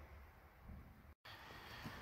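Near silence: faint low room rumble, broken by a brief total dropout at an edit about a second in.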